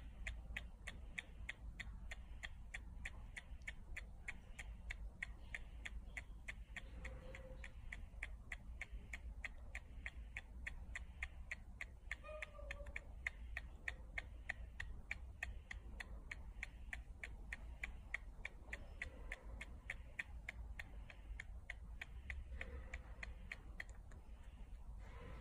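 Baby macaque sucking on its fingers, making a soft, steady run of rapid clicks several times a second, with a few brief faint squeaks now and then.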